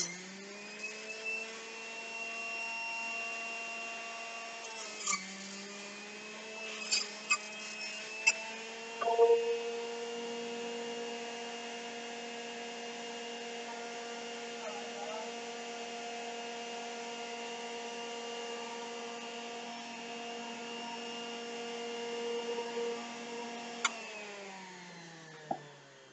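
Electric juicer's motor running with a steady whine, its pitch sagging briefly at the start and again about five seconds in as produce is pushed into it, with a few clicks and knocks around seven to nine seconds in. Near the end the motor is switched off and winds down in pitch.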